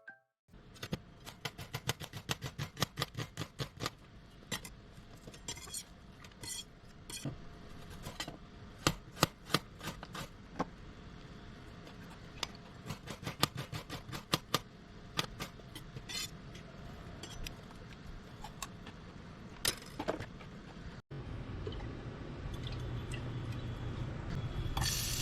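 Kitchen clatter: a fast run of knocks and clinks of utensils and dishes, about three to four a second at first, then scattered ones. A steady hiss of frying starts right at the end.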